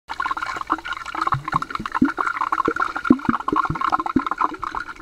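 Swimming-pool water heard from a camera under the surface: a steady muffled wash with many small pops and knocks from bubbles and the water moving. It cuts in suddenly at the start.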